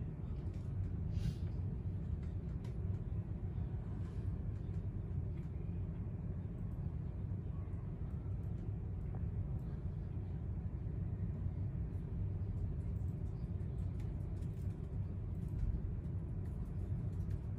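Steady low rumble of open-air stadium ambience, with a few faint scattered clicks.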